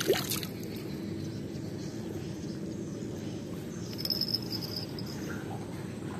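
Evening riverside ambience: a steady low outdoor hum with insects chirping, and one brief high chirp about four seconds in. A light knock sounds right at the start.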